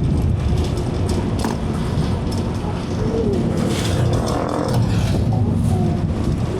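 Steady low rumble of a car on the move, with a few faint short pitched glides over it.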